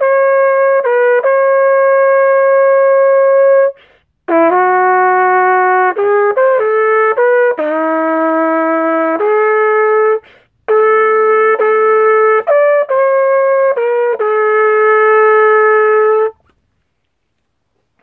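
A c1890s J.W. Pepper shepherd's crook cornet in B-flat, built to high pitch, played solo: a slow melody of long held notes with quicker ones between, in three phrases with short pauses at about four and ten seconds. The playing stops a little before the end.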